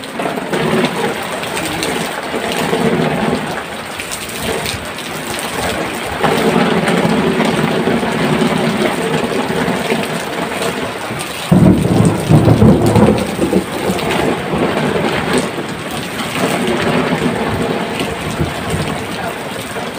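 Heavy rain falling steadily in a thunderstorm, with a sudden loud rumble of thunder about eleven and a half seconds in that lasts a couple of seconds.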